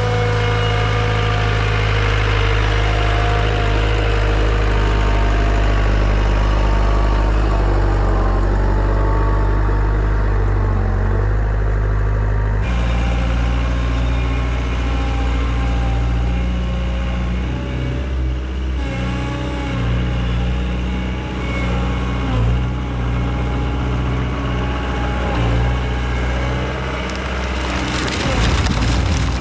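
Diesel engine of a compact Yanmar machine running steadily under load. Its tone changes abruptly about halfway through, and there is a short rattling clatter near the end.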